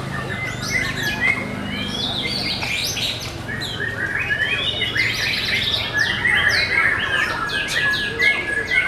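Several caged white-rumped shamas (murai batu) singing at once in a songbird contest, their songs overlapping in a dense run of fast, varied whistles and chirps. The song includes quick downward-sweeping notes, and a rapid trill comes in toward the end.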